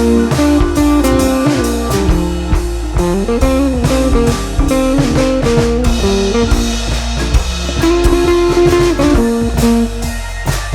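Music: a blues-style electric guitar with a drum kit, the guitar bending notes over a steady beat.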